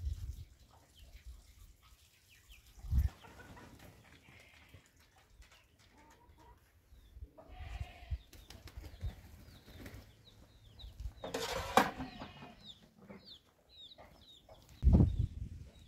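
Farmyard sounds: chickens clucking and small birds chirping, with a brief rustling flurry a little past the middle and low bumps near the start and end.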